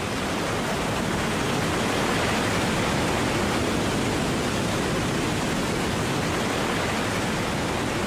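Swollen, muddy river in wet-season flood rushing over rapids and a low waterfall: a steady, even rush of churning whitewater.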